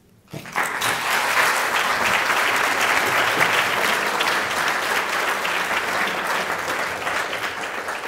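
Audience applauding, starting about half a second in and holding steady.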